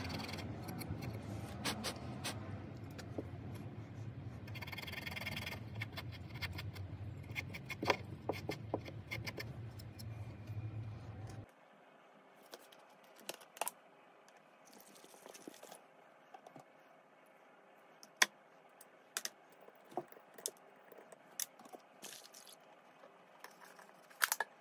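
Small steel blow-torch parts clinking and scraping as they are handled and taken apart, with sharp clicks over a steady low hum. About halfway through the hum cuts off, and only scattered light clicks and taps remain, with two sharper ticks near the end.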